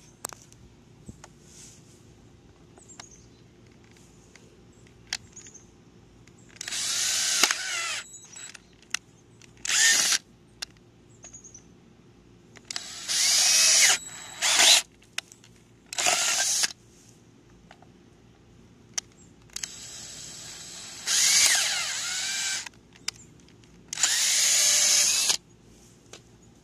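Handheld power drill boring holes through a plastic milk crate, run in six short bursts with the motor whine rising and falling in pitch as the trigger is squeezed and released, with small clicks between runs.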